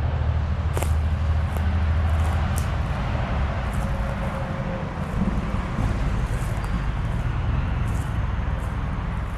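Road traffic: a motor vehicle's engine rumbling past, steady at first and easing off about halfway through, with scattered light ticks on top.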